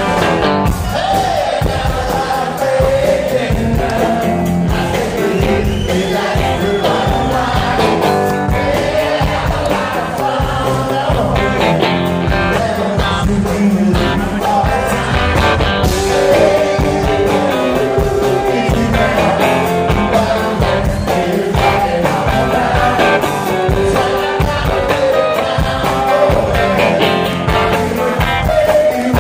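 A live rock band playing: a male lead singer over electric guitars, electric bass and a steady drum beat.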